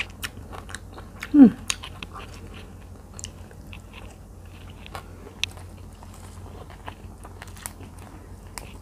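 Close-miked chewing of spicy minced tilapia salad, with wet mouth clicks and small crunches scattered throughout. About a second and a half in, a short voiced sound falling in pitch is the loudest thing.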